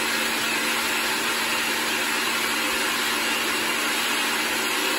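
Countertop blender running at one steady speed, whirring with a steady motor hum as it blends a papaya, milk and ice smoothie.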